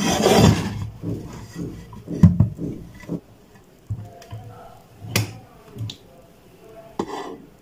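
A tempered-glass digital bathroom scale being handled and laid down on a table. A rustling scrape comes at the start, then several sharp knocks and clicks of glass and plastic against the surface.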